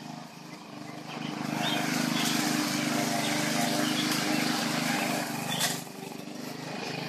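Gasoline walk-behind lawn mower engine running steadily, its level dipping briefly near the start and again about six seconds in.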